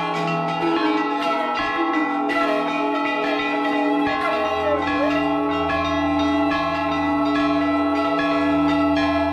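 Large brass temple bells struck again and again by several people, the strikes overlapping so the ringing never dies away. A steady low hum joins about four seconds in.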